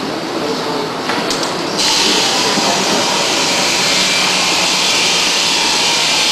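Factory workshop noise: a constant background din, with a loud, steady high hiss that starts abruptly about two seconds in and holds.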